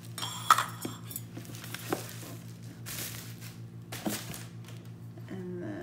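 Cardboard packaging rustling and scraping as a ceramic mug is pulled out of its box, with a sharp click about half a second in and a few lighter knocks, over a low steady hum.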